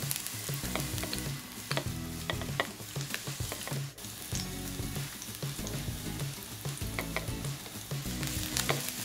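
Frying sizzle with scattered crackling pops, a dubbed-in cooking sound effect for Play-Doh fish 'frying' in a plastic toy pan. Soft background music with low bass notes runs underneath.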